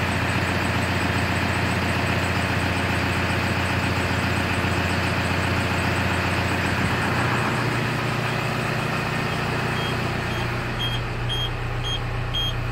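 Crane's diesel engine idling steadily, its low hum shifting slightly about seven seconds in. From about ten seconds in, a high warning beeper in the crane cab sounds about twice a second.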